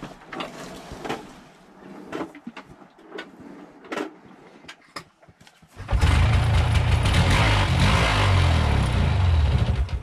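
A few scattered knocks and clicks, then about six seconds in an ATV engine starts and runs loudly and unevenly for about four seconds before cutting out suddenly. The owner puts the rough running down to a fouled spark plug.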